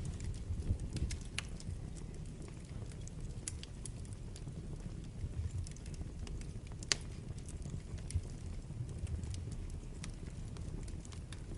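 Wood fire burning in a fireplace: a steady low rumble of the flames with scattered sharp crackles and pops, one louder pop about seven seconds in.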